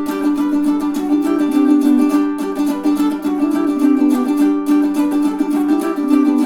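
Magic Fluke M20 tenor ukulele strung in re-entrant baritone tuning (dGBE with a high D) on Living Water strings, strummed in chords at a steady brisk pace.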